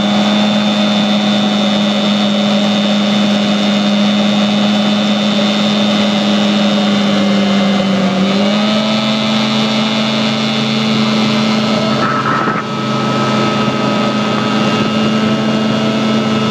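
A 15 hp Johnson two-stroke outboard, drystacked and ported, pushing a jon boat along at speed with a steady, loud engine note. About halfway through the engine note steps up slightly, and a little later the sound dips briefly.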